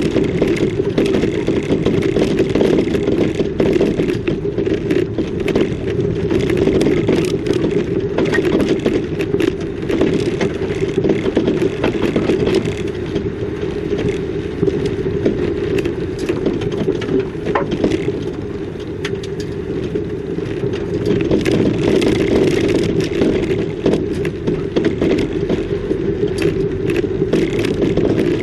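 Vehicle driving over a rough road: steady road noise with frequent rattles and crunching clicks.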